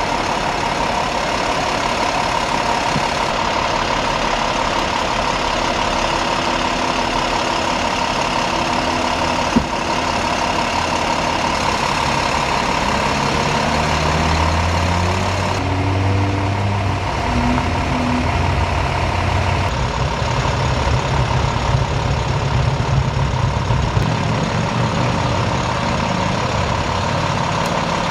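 Engines of parked emergency vehicles idling, a steady running noise with a constant tone through it. A single sharp click comes about ten seconds in, and a heavier low rumble joins about halfway through.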